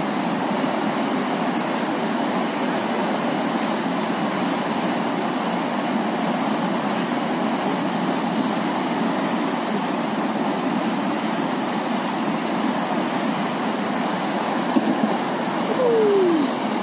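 Steady rushing of whitewater from the Eisbach standing river wave, the water churning over the weir in an even, continuous wash. A short falling tone stands out near the end.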